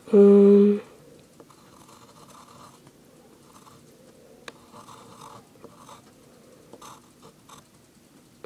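Pencil scratching on paper in short drawing strokes. A brief loud steady tone comes just after the start and lasts under a second.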